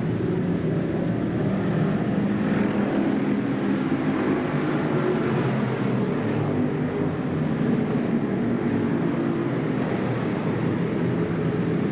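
Several oval-track race car engines running at speed together, a steady mixed drone with no breaks.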